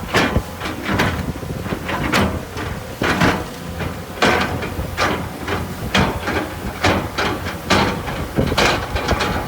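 Heavy earthmoving machine running with a low rumble, with irregular metallic clanks and knocks one to two times a second.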